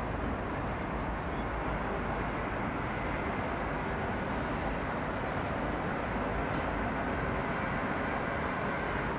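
Steady outdoor ambient noise: an even low rumble with hiss and no distinct events.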